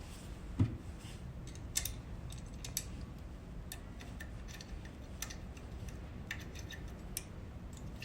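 Scattered small metal clicks and ticks of screws being tightened with a hand tool, with a louder knock about half a second in and a few sharper clicks in the next couple of seconds.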